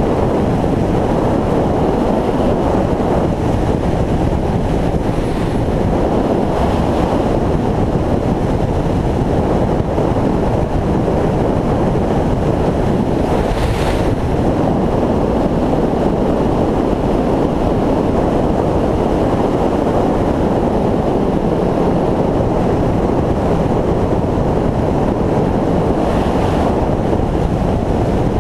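Steady wind rush over the microphone of a motorcycle at road speed, with the bike's engine and tyre noise underneath. A brief higher hiss comes about halfway through.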